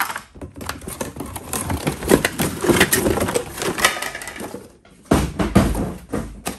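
Hard plastic cordless-tool parts being handled: a run of rapid, irregular clicks and clatter, then a few heavier knocks near the end.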